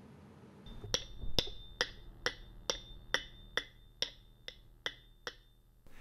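A steady ticking: eleven sharp, evenly spaced ticks, a little over two a second, each with a short ringing tail, starting about a second in.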